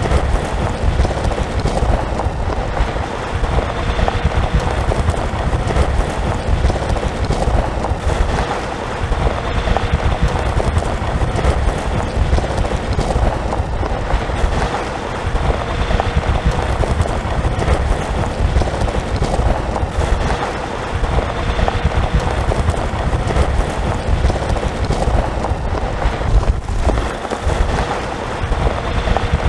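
Car driving on a gravel road: steady low road rumble with a dense clatter of small stones under the tyres and a faint steady hum.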